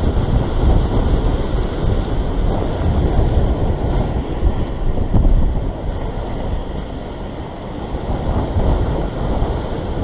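Wind buffeting the microphone, a heavy rumble that surges and eases, over surf breaking and washing against shoreline rocks.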